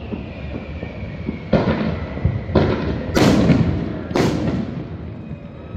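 Fireworks exploding in the distance: four booms about a second apart, the last two the loudest, each rumbling away as it echoes.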